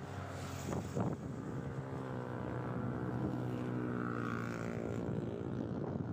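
An engine drones steadily, its pitch holding nearly level throughout, with wind buffeting the microphone about a second in.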